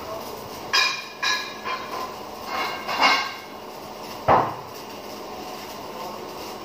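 Steel being struck: about seven sharp metallic clanks that ring briefly, in the first four and a half seconds, the loudest a duller knock about four seconds in, then only steady background noise.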